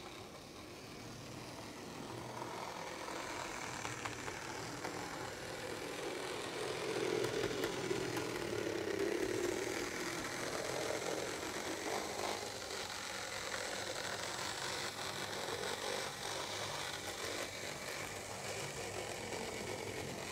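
HO scale model train running on the track, its small electric motor humming and wheels rolling on the rails. It grows louder over the first several seconds as it comes closer, is loudest about halfway through, then runs on steadily.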